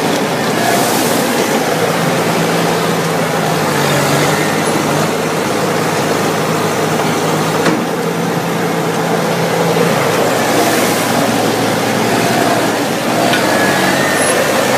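Olive harvester running at work: a loud, steady drone of engine and machinery with a low hum underneath.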